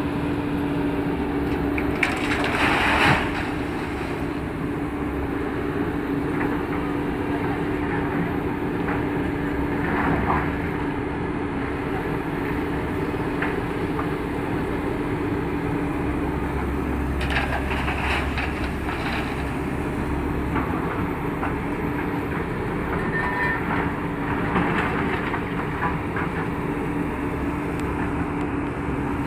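JCB tracked excavator's diesel engine running steadily under load, with the crunch and scrape of rubble in its bucket several times as it digs and loads the hopper wagon.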